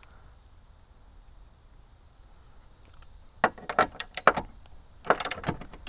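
Steady high-pitched insect buzzing. From about three and a half seconds in, two quick runs of ratcheting clicks come from a click-type torque wrench set to 18 ft-lb as the bracket bolts are tightened down.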